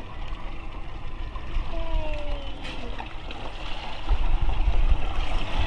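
Wind buffeting the microphone over water sloshing at a boat's side, growing louder about four seconds in as a wet mylar balloon is lifted out of the sea. There is a short falling squeak about two seconds in.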